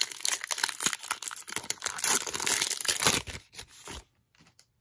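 Wrapper of an NBA Hoops trading card pack being torn open and crinkled by hand, a dense crackling that stops about four seconds in. A few faint clicks follow.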